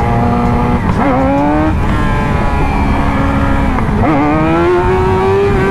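Yamaha R6 sportbike's inline-four engine running under way. The revs climb about a second in, drop back, then climb again around four seconds in and hold. Heavy wind rumble sits underneath.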